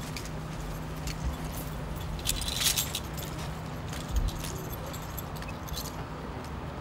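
Metal clinking and jangling of a lineman's climbing gear (buckles, hooks and tools on his belt) as he straps on pole climbers, loudest about two and a half seconds in, with a dull knock about four seconds in. Underneath is a steady low hum of idling trucks.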